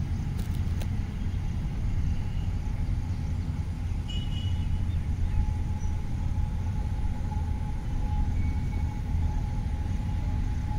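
Steady low outdoor rumble, with a faint steady whine that comes in about halfway through.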